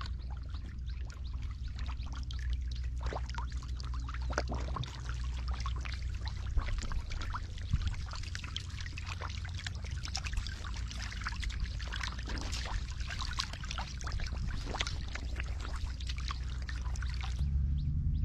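Many catfish thrashing in shallow, muddy paddy water, making a steady run of small splashes and trickling sounds over a low rumble.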